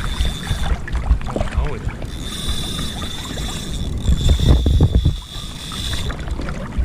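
Kayak at sea: water slapping against the hull and wind buffeting the microphone in uneven low rumbles, with a thin steady high whine that cuts out about a second in and returns about a second later.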